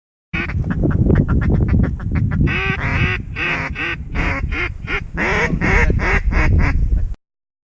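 Duck quacking: a fast run of short quacks, then a series of longer, louder quacks, over a low rumble.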